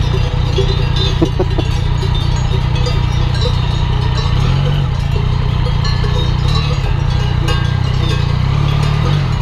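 The Yamaha Tracer 900's three-cylinder engine runs steadily under way, with cowbells on grazing cattle ringing over it.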